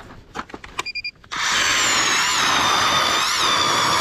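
StrikeMaster Lithium 24V battery ice auger starting suddenly about a second in and drilling into lake ice, a steady loud motor run with a high whine. A few light knocks and a short beep come just before it starts.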